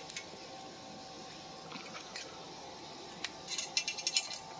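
A few scattered clicks, then near the end a quick run of ratcheting clicks: a ratchet wrench tightening down the bolts of an 80/20 extruded-aluminum bed frame.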